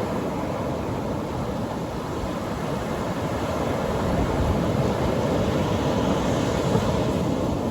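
Atlantic Ocean surf breaking and washing up the beach: a steady rush of waves that swells a little after the middle and near the end.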